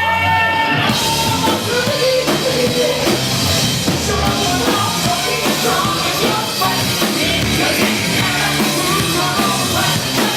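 Rock band playing, with drum kit and singing; the drums and cymbals fill out about a second in.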